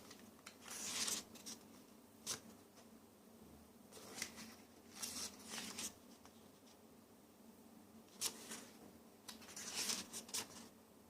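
Rustling, scraping and light clicks from a photo book and its packaging being handled, in about a dozen short scratchy bursts with pauses between them.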